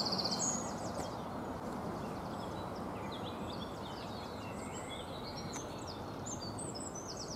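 Small songbirds chirping and calling over a steady low rush of outdoor background noise. A rapid trilled call sounds right at the start, then short high chirps come on and off.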